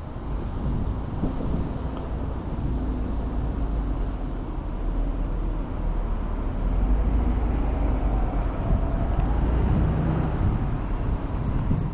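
Steady outdoor background rumble: wind buffeting the microphone, mixed with the wash of road traffic.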